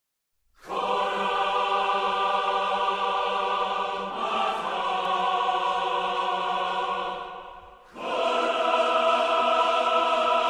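Music soundtrack of sustained choir-like chords. It starts about half a second in, shifts to a new chord about four seconds in, fades briefly and comes back louder with another chord about eight seconds in.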